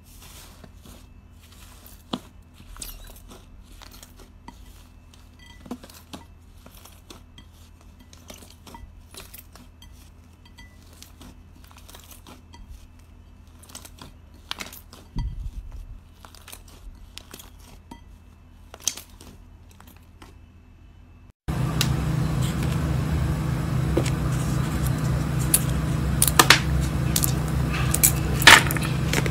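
Slime squished, stretched and folded by hand, giving scattered small clicks and sticky crackling pops. About two-thirds of the way through it cuts to a louder recording, with a steady low hum under sharper crackles and snaps.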